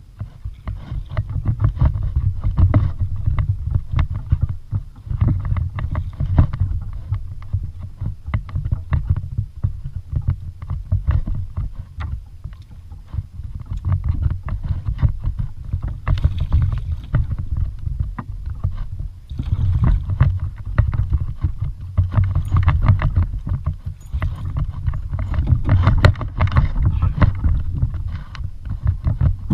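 A kayak on the water: water sloshing against the hull with irregular knocks and handling noise over a strong low rumble, coming and going in waves.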